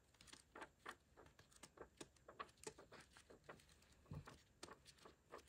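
Faint, scattered rustles and light ticks of paper being handled: sheets of an old-paper-style craft paper pad being leafed through.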